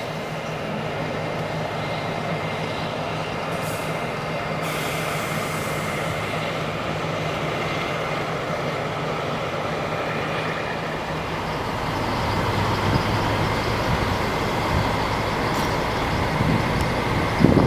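Heavy diesel engines running at a steady idle with a low hum. A short hiss comes about four and a half seconds in, and a deeper rumble builds up over the last third.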